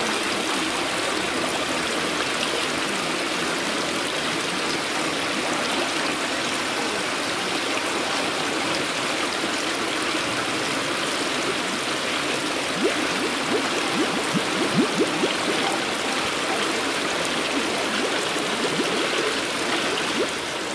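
Steady rush and trickle of running water, with a handful of short pops about two-thirds of the way through.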